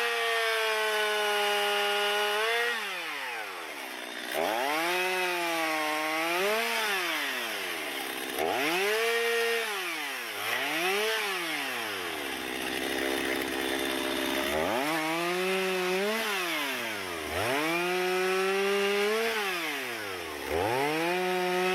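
Chainsaw revved up and held at full throttle for a few seconds at a time, dropping back between, with a couple of seconds of idle near the middle, as it cuts through wood.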